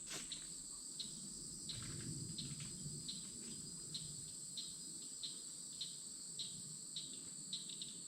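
Steady, high-pitched insect chorus at a faint level, with short chirps repeating about every half second to a second.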